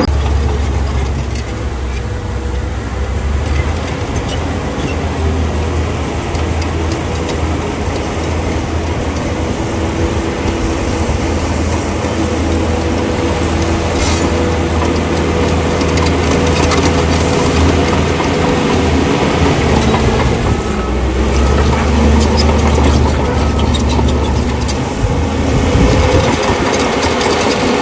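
Bulldozer's diesel engine running steadily under work, its note dipping and picking up again a few times.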